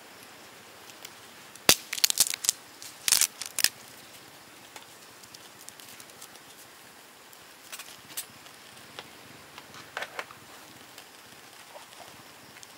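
Small wood fire crackling in a portable folding fire pit, with a cluster of sharp, loud pops about two to four seconds in and a few fainter pops later.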